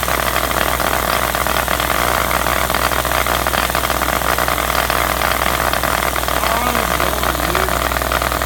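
JL Audio W0 10-inch subwoofer wired directly to a wall socket, its cone driven by mains current and giving a loud, steady hum and buzz. The driver is being overloaded and cooked by the mains power.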